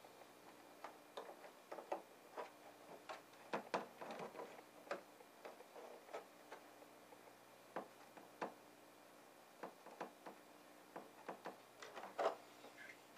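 Irregular small plastic clicks and taps as hands thread a CISS ink tube through its T-piece holder and press it into place inside an Epson printer. The loudest click comes near the end.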